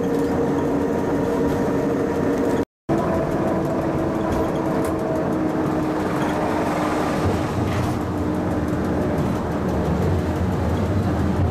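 Electric cogwheel railcar of the Pilatus Railway running down the rack line, heard from inside the car: a steady rumble with a constant motor hum. The sound drops out for a split second about two and a half seconds in, and the hum settles at a slightly different pitch afterwards.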